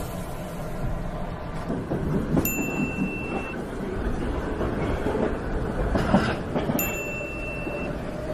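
Subway train running, a steady rumble and rattle inside the car. Two identical high steady tones, each about a second long and some four seconds apart, come in as added comic sound effects.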